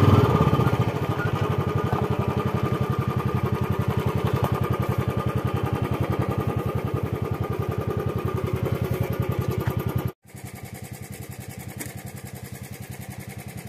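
Royal Enfield Bullet's single-cylinder engine running as the motorcycle rides along, an even rapid thudding. About ten seconds in the sound cuts off abruptly and returns quieter, with the same engine beat.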